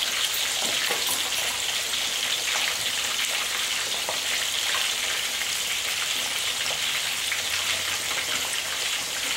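Whole fish deep-frying in hot oil in a stainless steel wok: a steady sizzling hiss with scattered small crackles.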